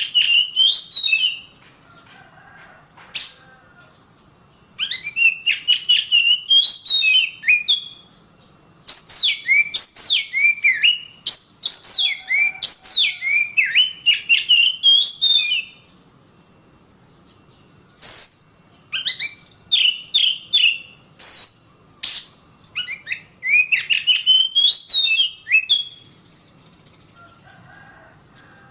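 Oriental magpie-robin (kacer) singing: bouts of rapid, varied whistled notes and quick downward-sliding phrases, each a few seconds long, separated by short pauses.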